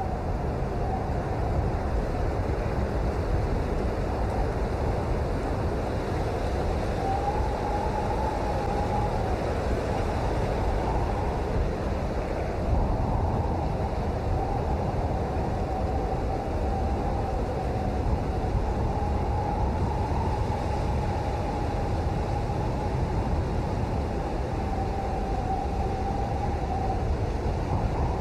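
Steady, dense rain noise, heaviest in the low range, with a faint wavering tone running through most of it.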